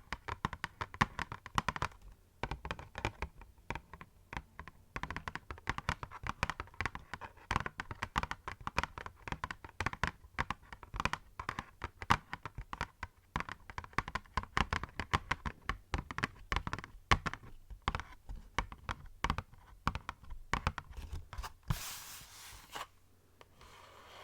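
Fingernails tapping and scratching on cardboard boxes: a dense run of quick, crisp taps and clicks, then about a second of rustling near the end.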